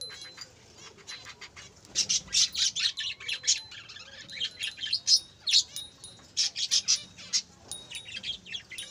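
Budgerigars chirping and chattering in quick, high warbling runs, sparse at first and much busier from about two seconds in.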